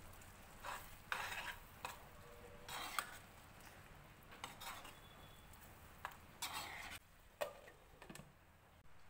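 Steel ladle stirring curd into a thick prawn gravy in a non-stick kadai, scraping and clinking against the pan in irregular strokes. Near the end the glass lid is set onto the pan.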